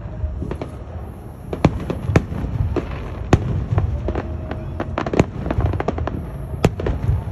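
Aerial fireworks display: shells bursting in an irregular string of more than a dozen sharp bangs and cracks, over a steady low rumble.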